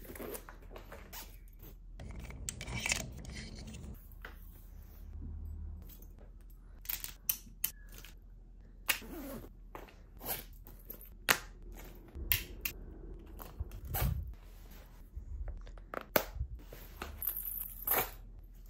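Items being packed by hand into a woven tote bag: soft rustling of fabric pouches and bag lining, with scattered sharp taps and clicks as objects are set down and handled.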